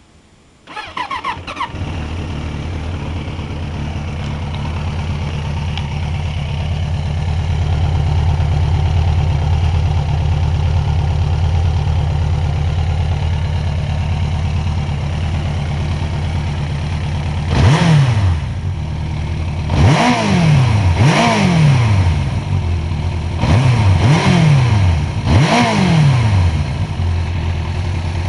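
1991 Suzuki GSX750F's 748 cc air/oil-cooled four-cylinder engine being started: a brief crank, then it catches and idles steadily. In the second half it is revved in about six quick throttle blips, each rising and falling in pitch, then drops back to idle.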